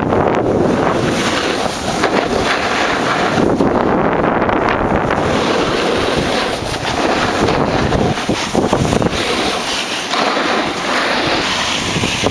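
Wind buffeting the microphone mixed with the steady scrape of edges sliding over packed snow while riding down a groomed slope, easing briefly a few times.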